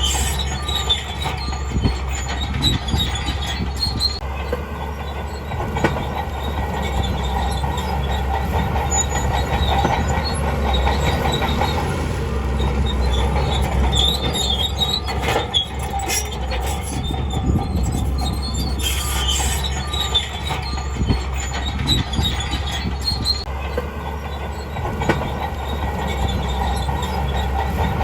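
Crawler bulldozer on the move: its diesel engine runs with a steady low hum under the clanking and squealing of its steel tracks.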